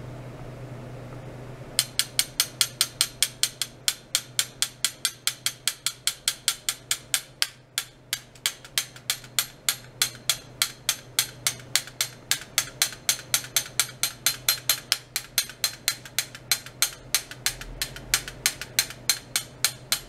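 Ultrasonic test rig under pulsed oscillation giving an even train of sharp clicks, about four a second, starting about two seconds in, over a steady low electrical hum.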